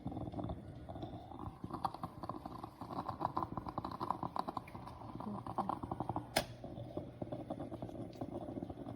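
Plain water bubbling and sputtering in a stainless steel stovetop moka pot on the heat, a dense irregular crackle over a low rumble, with one sharp click about six seconds in.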